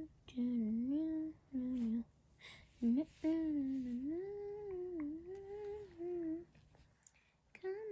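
A girl humming a wandering tune to herself in several short phrases, the longest about three seconds, with a brief pause before she starts again near the end.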